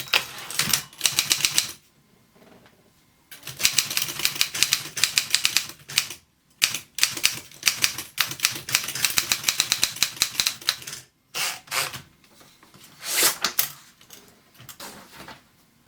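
Wartime German Continental manual typewriter being typed on: fast runs of typebar strikes broken by short pauses, thinning to scattered strokes in the last few seconds.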